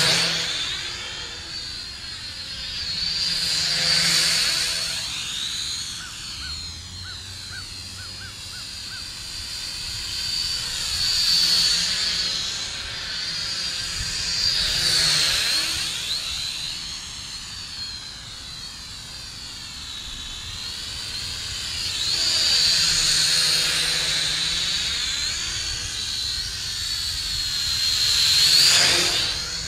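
Syma X5C toy quadcopter's small electric motors and propellers whining in a high, steady buzz. The sound swells and fades about six times as the drone makes passes close by, with a swirling, phasing quality at each pass.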